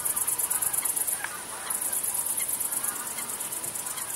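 Crickets chirping in a fast, high-pitched pulsing trill that breaks off briefly about a second and a half in, with faint bird calls underneath.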